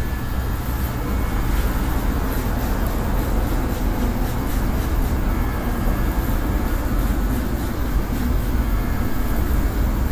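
Electric hair clippers running with a steady low buzz as they shave a scalp down close to the skin.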